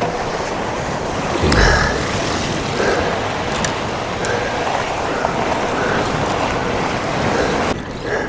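Surf breaking on a beach, with wind buffeting the microphone, steady throughout; a brief low thump about a second and a half in.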